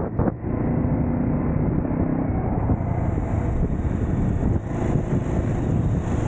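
Adventure motorcycle engine running at road speed on a gravel track, heard from the bike itself, with wind buffeting the camera microphone. The engine note dips briefly just after the start, then carries on steadily.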